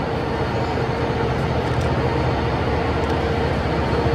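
35-ton overhead crane running steadily as it is positioned to grip a railcar, a continuous mechanical hum with a steady mid-pitched tone.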